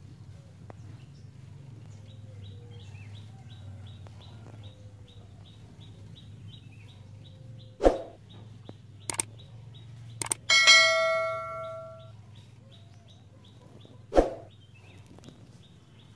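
Rhythmic high chirping, about three chirps a second, over a low steady hum. About eight seconds in there is a sharp thump, then a few clicks and a loud metallic ring that dies away over a second or so, and another thump near the end.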